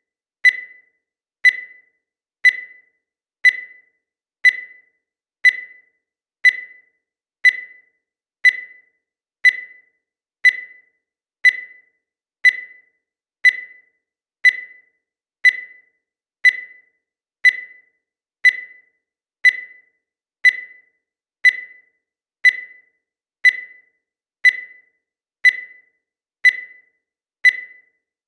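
Digital countdown timer beeping once a second: short, high electronic beeps, each fading quickly, evenly spaced all through.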